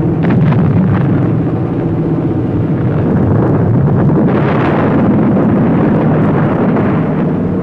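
Loud, continuous rumble of bomb blasts over the steady drone of propeller aircraft engines, swelling about a third of a second in and again around the middle.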